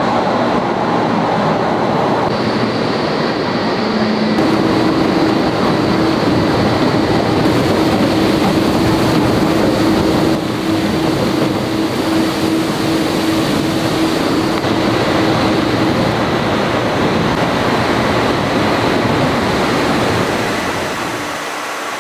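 Heavy-forging shop noise as a 200-ton clamp crane lowers a red-hot steel forged shell into a water quench tank: a steady mechanical rushing with quench water churning around the hot steel, and a steady hum running through the middle stretch.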